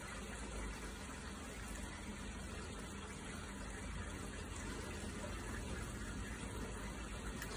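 Steady background noise: a low rumble under an even hiss, with no distinct events.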